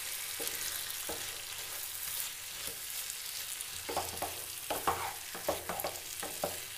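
Pieces of chicken and potato frying with a steady sizzle in a pan of thick, dry masala as a wooden spatula stirs them, with scraping knocks of the spatula against the pan, most of them between about four and six seconds in.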